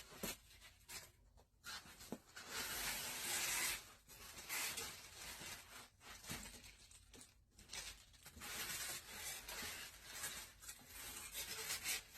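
Packaging being pulled out of a box and handled: repeated scratchy rustling and tearing, loudest about three seconds in.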